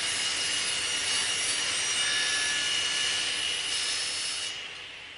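Sound effect for a crumbling-logo animation: a steady, high rushing hiss with a thin ringing tone in it, fading away over the last second and a half.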